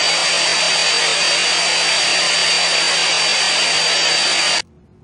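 Small handheld vacuum cleaner running steadily, a loud even rush with a thin high whine on top, picking up shed pet fur from a tile floor. It cuts off suddenly near the end.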